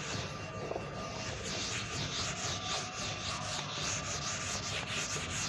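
A run of short, scratchy rubbing strokes, a few a second, over a faint steady hum.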